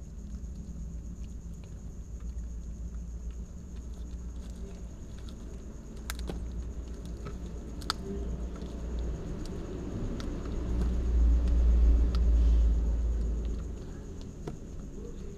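Cats chewing fish, with a few sharp crunches. A low rumble runs underneath and swells for about three seconds near the end, then dies down.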